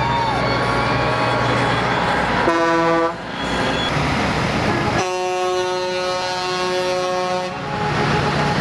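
Semi-truck air horns honking as light-covered rigs roll past: a short blast about two and a half seconds in, then a longer, louder blast about five seconds in that holds for two and a half seconds. The trucks' engine and road noise run steadily underneath.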